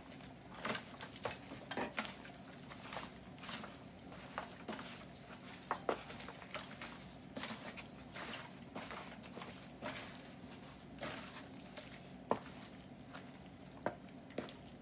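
A gloved hand turning and rubbing seasoned raw chicken pieces in a disposable aluminium foil pan, with irregular soft clicks and crinkles from the foil pan. A steady low hum runs underneath.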